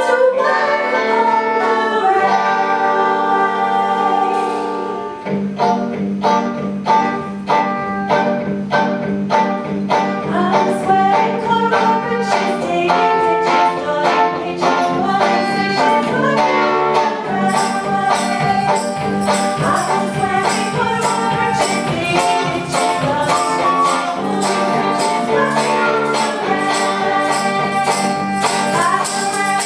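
Music: an ensemble piece with held notes at first, then a steady beat from about five seconds in; a high, bright percussion part joins a little past halfway.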